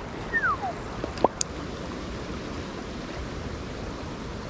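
Swollen river current rushing steadily. About half a second in there is a short falling whistle, and a couple of faint clicks come just after a second.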